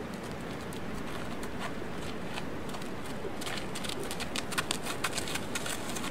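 A yearling horse's hooves scuffing and clicking lightly on arena dirt as it walks, scattered clicks over a steady outdoor hiss.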